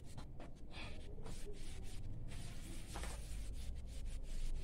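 A cloth duster rubbing across a chalkboard in repeated swishing strokes, wiping off chalk writing.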